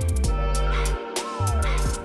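Background music with a heavy bass line and a steady drum beat, in a hip-hop or electronic style.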